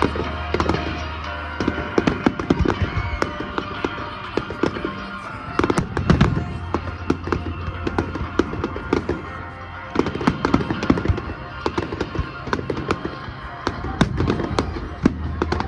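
Display fireworks going off in quick, irregular succession: many sharp bangs and crackling bursts, with music playing underneath.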